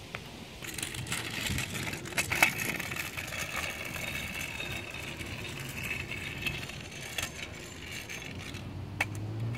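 Kick scooter's small hard wheels rolling over rough, cracked asphalt: a steady rattling hiss with a few sharp clicks.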